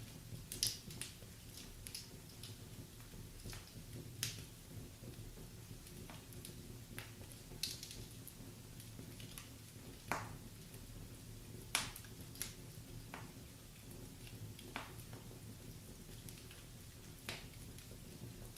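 Wood fire crackling in a fireplace: irregular sharp pops and snaps, about a dozen, over a low steady background.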